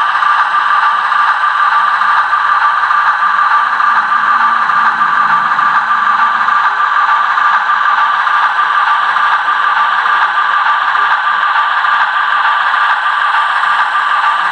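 HO-scale Bachmann S2 switcher model locomotive running along the track: its flywheel-driven electric motor and gears whir with a steady high whine, over a light rattle of wheels on the rails.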